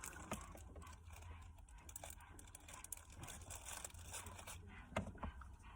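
Quiet handling sounds of small parts: scattered light clicks, scrapes and rustling as gear-knob adapter pieces are fiddled with and tried on the gear stick.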